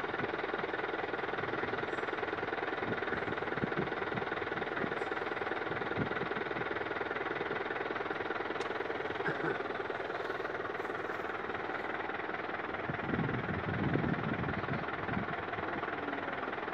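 An engine running steadily, with a few louder low rumbles about thirteen to fifteen seconds in.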